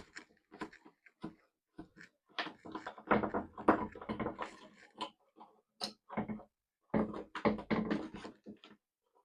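Irregular handling noise of wiring being connected in a conduit box: clicks, knocks and scrapes in bunches, loudest about three to four seconds in and again about seven to eight seconds in.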